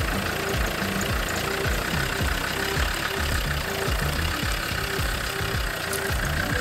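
Land Rover Defender engine running steadily with a low, even throb.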